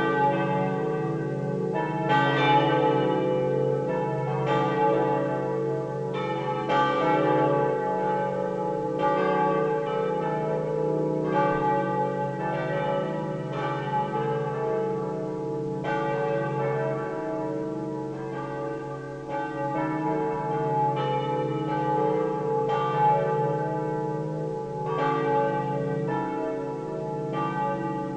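Swinging church bells, cast or recast by the Pruneri foundry of Grosio in 1901, ringing together. Strikes fall about every two seconds, with extra strokes in between, and their lingering tones overlap into a continuous hum.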